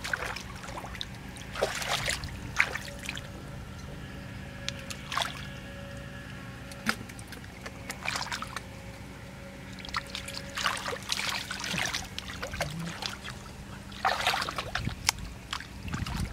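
Hands and feet splashing and sloshing through shallow muddy water in irregular bursts while groping in the mud for fish, over a faint steady hum.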